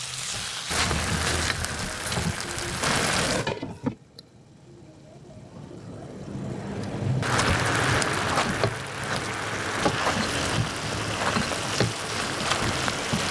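Chicken pieces sizzling in a wok in a fish-sauce glaze, with a silicone spatula scraping the pan and turning them. About three and a half seconds in, the sizzle drops to a quiet, muffled sizzle under a glass lid that slowly builds. Loud sizzling and scraping return suddenly about seven seconds in.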